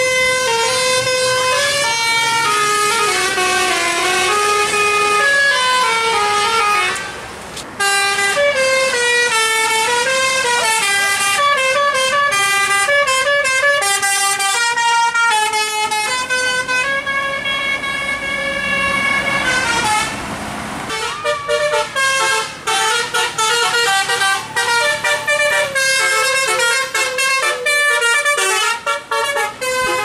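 Telolet Basuri musical bus horns on Indonesian tour buses, sounded through a roof-mounted horn trumpet, playing varied melodic tunes of stepped notes one after another. There is a short break about seven seconds in and a stretch of rushing noise around twenty seconds in.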